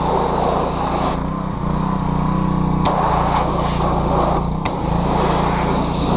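Pressure washer running steadily with its water jet hissing against the engine; the spray cuts out about a second in, comes back near the three-second mark and stops briefly again a little later, as the trigger is released and squeezed.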